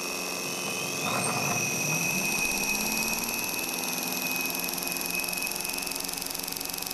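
Kromrey converter armature spinning up: a whine rises in pitch over about the first second and a half and settles into a steady high whine. A constant high tone from the machinery already running sounds throughout.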